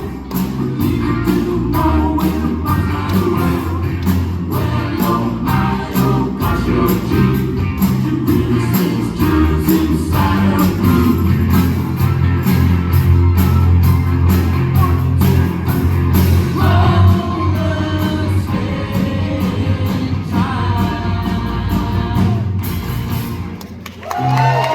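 Live rock band playing with a steady drum beat, guitar and sung harmonies; the music drops away just before the end.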